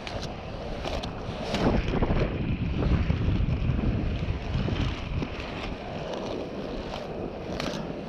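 In-line skate wheels on Twin Cam rustproof bearings rolling over a smooth street, a steady rumble with a few sharp clicks, mixed with wind buffeting the microphone.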